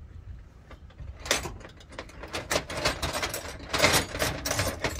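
Metal hand tools clinking and clattering as they are rummaged through in a soft-sided tool bag, a busy run of clatter starting about a second in.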